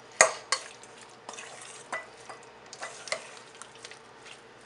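A utensil stirring a mayonnaise-coated shrimp mixture in a stainless steel bowl, with irregular sharp clinks against the bowl, the loudest about a quarter second in.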